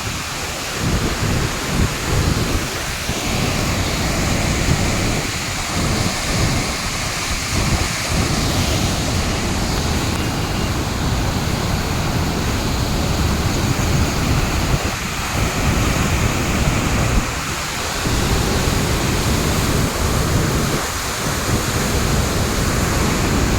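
Water rushing steadily through an open dam gate, with wind buffeting the microphone in uneven gusts.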